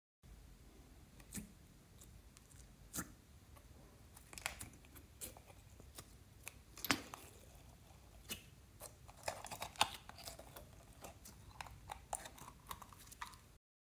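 Clear slime being squeezed by hand out of a plastic container, giving sticky pops, squelches and crackles with light clicks from the plastic, scattered irregularly and busier in the second half.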